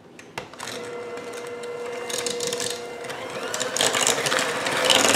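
Electric hand mixer switched on about half a second in, its motor running with a steady whine while the beaters rattle and churn through egg and sugar in the bowl, getting louder near the end.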